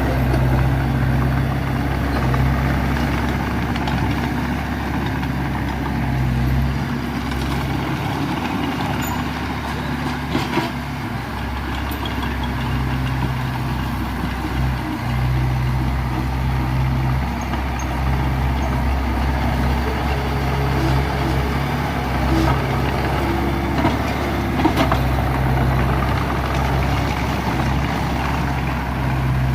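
Heavy diesel engine of earthmoving machinery running steadily at a low, even pitch, its note dipping and shifting briefly about a third of the way in, with a few faint knocks.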